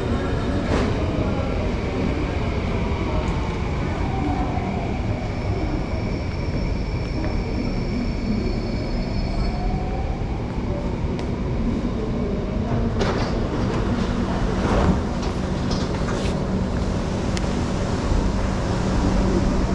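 Downtown Line MRT train pulling into an underground platform, its motors whining and gliding down in pitch as it brakes to a stop. About 13 seconds in, a run of sharp clicks and knocks follows as the train doors and platform screen doors open, over a steady low hum from the standing train.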